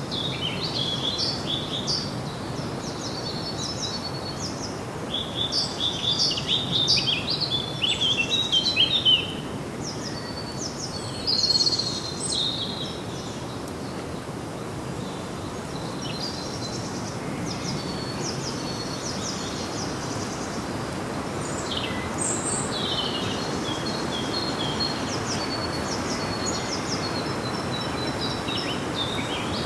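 Several songbirds chirping and trilling in quick bursts, busiest in the first nine seconds and again in the last few seconds, over a steady outdoor background hiss.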